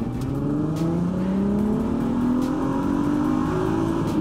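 Volkswagen Golf Mk4 R32's 3.2-litre VR6 engine in a full-throttle pull in second gear from about 1,000 rpm, heard from inside the cabin. Its pitch climbs steadily toward about 7,000 rpm and drops right at the end as the throttle comes off.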